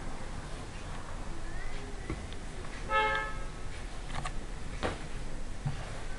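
Faint light clicks and rustles of hands handling macramé cords and pins, with one short steady horn-like toot about three seconds in.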